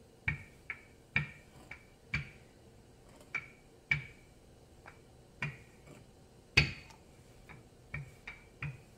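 Wooden handled rolling pin clicking and knocking against a granite countertop as it is pushed back and forth over a sheet of pasta dough. The clicks come unevenly, about one to two a second, with one louder knock a little past halfway.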